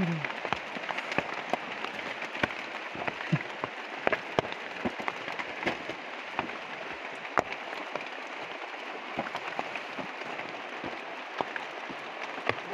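Rain falling on forest foliage: a steady hiss with many irregular sharp drops ticking on leaves.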